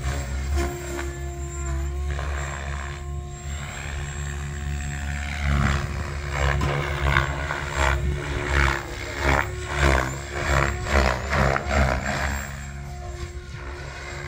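SAB Raw Piuma 700-size electric RC helicopter in flight, driven by a Scorpion 4035-560KV motor: a steady rotor and motor whine. From about five to twelve seconds in, the rotor sound swells and fades about twice a second.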